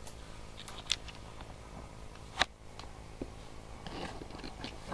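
Camera handling noise: a few short clicks and knocks, the loudest about halfway through, as the fallen camera is stood back upright on the table, over a low steady hum.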